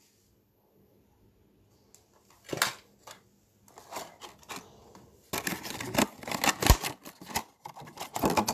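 Cosmetic containers and plastic packaging being handled and set down on a table: scattered clicks, knocks and rustling after a near-silent start, busiest in the last few seconds.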